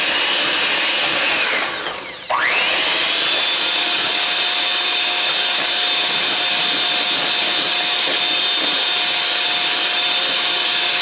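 Electric hand mixer whirring as its two beaters whip heavy cream in a stainless steel bowl, the cream just starting to thicken. About two seconds in the motor winds down briefly, then comes straight back on and runs at a steady, slightly higher whine.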